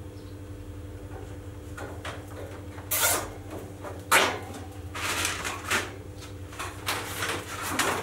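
Handling noise as a plastic underfloor-heating pipe is bent and fastened to steel mesh laid over foam boards: irregular scrapes and clatters, the sharpest about three and four seconds in and more clustered near the end, over a steady low hum.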